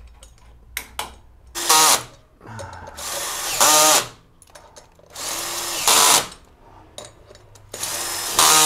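Cordless drill with a socket spinning wheel nuts onto a scooter wheel's studs in four short runs, each about a second long and each ending louder as the nut runs down and pulls the rim tight.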